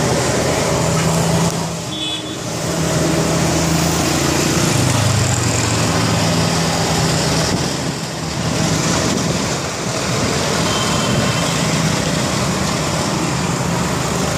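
Street traffic with a motor vehicle's engine running steadily close by, its note rising briefly about five seconds in, over constant road noise.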